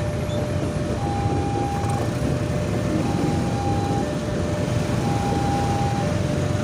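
Railway level-crossing alarm sounding its two-tone warning, a higher and a lower tone taking turns about once a second, while the crossing is closed for a passing electric commuter train. Under it, the train runs past with a steady rumble, along with idling motorcycle engines.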